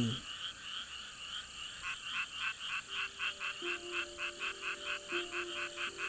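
A night chorus of frogs calling, with a rapid run of repeated croaks, about five a second, setting in about two seconds in. Soft music with low held notes comes in underneath at about three seconds.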